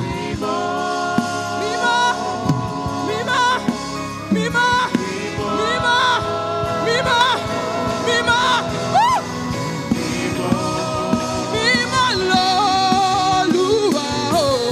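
Gospel worship music with singing: sustained keyboard chords under voices singing and calling out in long held, bending phrases.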